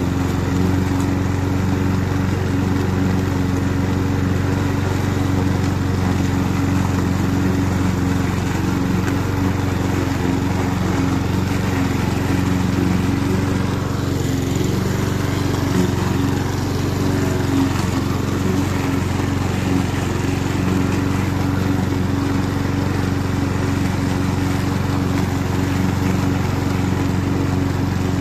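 Roller lawn mower's petrol engine running steadily at a constant pitch while mowing.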